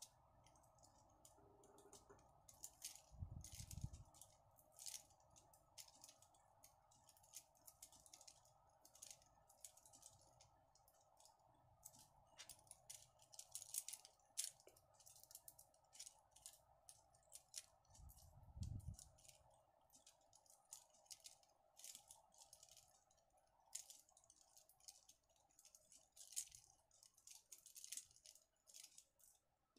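Faint, irregular clicking and rustling of wired acrylic flower sprigs as they are handled and bunched together, petals and beaded buds tapping against each other, over a faint steady hum. Two soft low thumps, about three seconds in and again near the middle.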